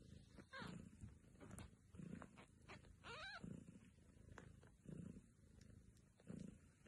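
A mother cat's faint purring, swelling in a slow regular rhythm about every second and a half. A newborn kitten gives a thin, high mew falling in pitch about three seconds in, with a fainter one near the start.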